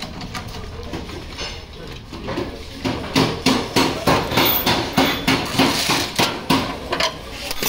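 Metal hammering: a hammer striking metal in repeated blows, a few scattered ones at first, then a steady run of about three a second from about three seconds in.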